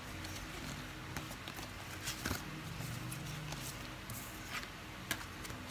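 Scattered light taps and knocks of things handled on a tabletop, several irregular strikes over a low room hum.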